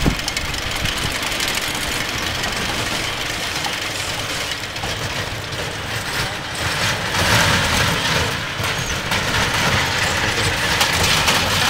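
Small kiddie roller coaster running: a steady mechanical clatter of the chain lift and the train's wheels on the steel track, growing louder about seven seconds in as the train comes closer.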